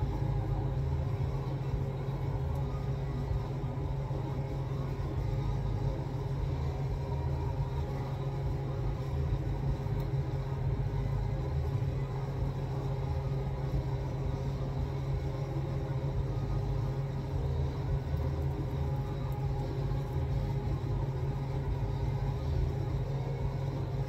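Steady low mechanical hum with a few faint held tones above it.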